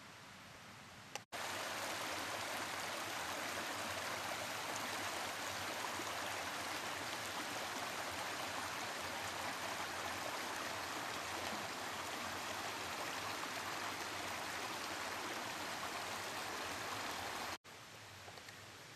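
Shallow woodland brook running over a stony bed: a steady rushing of water that starts abruptly about a second in and cuts off abruptly near the end.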